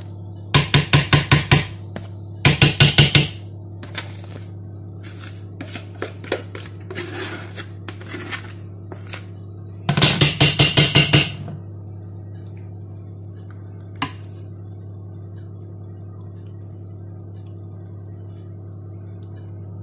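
A metal utensil rapped quickly against a glass baking dish, knocking off clinging mashed potato: three bursts of rapid taps, the last about ten seconds in, with a few lighter clinks and scrapes between.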